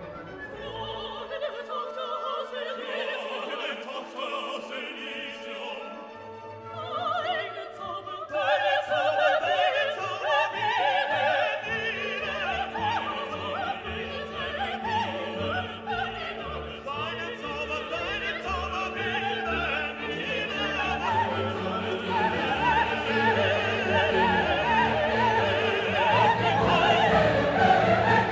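Background orchestral music with operatic singing, soft at first and growing fuller about eight seconds in, with a bass line entering a few seconds later.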